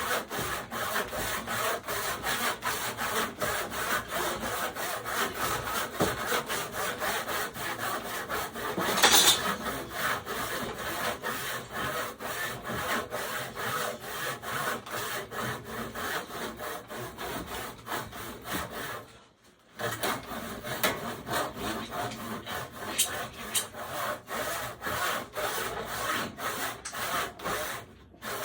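Handsaw cutting through wood in quick, steady back-and-forth strokes, stopping briefly about two-thirds of the way through.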